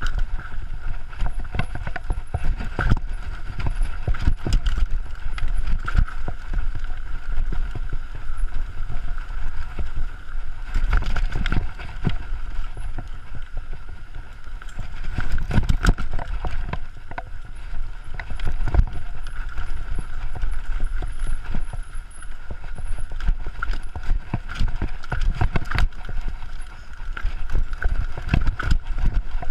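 Mountain bike descending a dirt downhill trail, heard from a chest-mounted action camera: tyres rumbling over the dirt under frequent, irregular knocks and rattles from the bike as it hits bumps.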